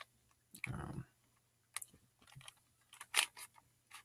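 Plastic barrel cube puzzle being twisted by hand: scattered clicks and clacks as its layers turn, loudest in a quick cluster about three seconds in, with a soft muffled handling bump near the start.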